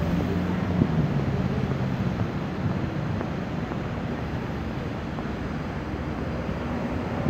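Steady road-traffic noise with wind on the microphone. A vehicle engine's low hum stands out during the first two seconds, then fades.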